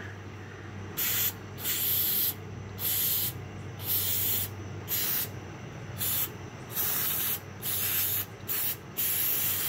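Aerosol can of brake cleaner spraying in about a dozen short hissing bursts, degreasing a grimy motorcycle kickstand and its spring.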